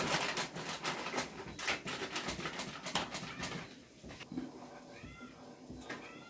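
A plastic flour packet crinkling and rustling as flour is shaken out into a steel bowl, busy for about three and a half seconds. After it, the sound is quieter, with a few short, high-pitched calls that rise and fall.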